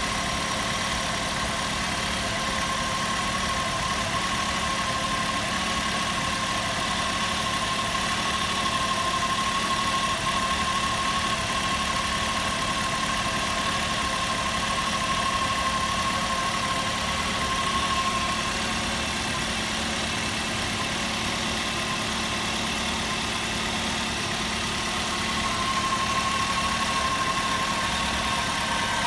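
Ford Focus II engine idling steadily, with a thin high whine running through it that grows stronger in places.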